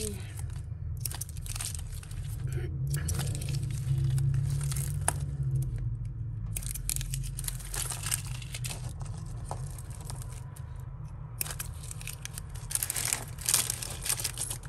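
Plastic crinkling and rustling in several bursts as a bag of costume jewellery is handled and sorted by hand, with a sharp click about five seconds in, over a steady low hum.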